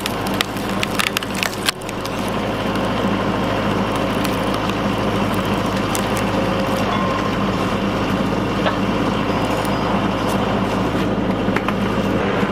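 LS XR4040 compact tractor's diesel engine running steadily, driving a tractor-mounted hydraulic log splitter. Wood cracks and splinters in the first couple of seconds as the wedge splits a rotten log, with a few more cracks later.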